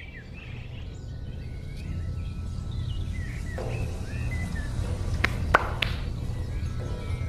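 A low rumbling drone that slowly swells, with birds chirping over it and three sharp clicks about five to six seconds in.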